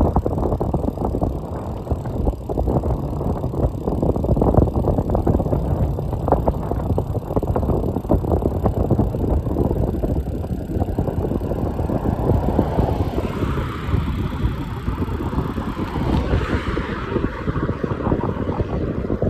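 Wind buffeting the microphone during a road ride: a steady, heavy low rumble. A rushing hiss swells in over it between about twelve and eighteen seconds in.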